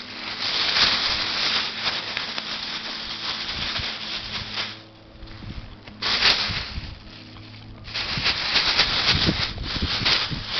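Plastic bag crinkling and rustling as ferrets play in it. It comes in bursts, with two short lulls around the middle.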